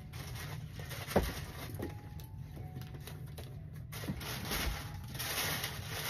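Tissue paper rustling and crinkling as a sneaker and its paper stuffing are handled over an open shoebox, with one sharp knock about a second in, over a low steady hum. The rustling grows louder in the second half.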